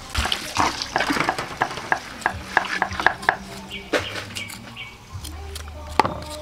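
A cleaver slicing white radish on a wooden chopping block in a quick run of cuts. Then a knife scrapes the skin off a root, with a sharp knock near the end.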